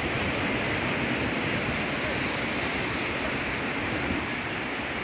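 Sea surf breaking and washing up a sandy beach: a steady rush of small waves.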